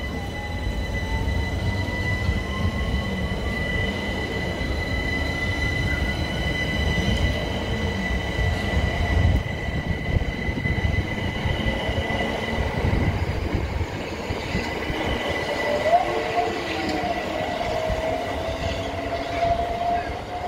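Two coupled Southeastern Class 376 electric multiple units pulling away from the platform: a steady low rumble of wheels on the rails under a high whine that rises in pitch as the train gathers speed.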